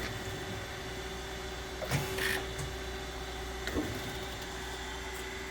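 Kent KGS-1020 hydraulic surface grinder running steadily, its spindle, hydraulic table drive and coolant system humming with a held tone, with two brief louder bursts about two seconds in and again near four seconds.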